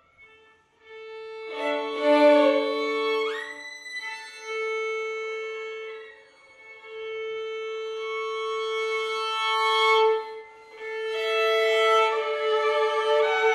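Violins playing slow contemporary music: long held notes, often two at once, with an upward slide about three seconds in and short pauses near the start and around the middle.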